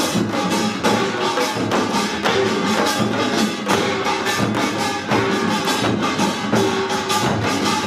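Korean pungmul percussion in a pangut: janggu hourglass drums and buk barrel drums beating a fast, driving rhythm together, with sharp, bright high strikes over the drums.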